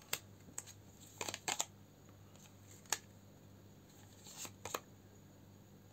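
Tarot cards being handled and laid down: a few short, soft card snaps and rustles, scattered over several seconds.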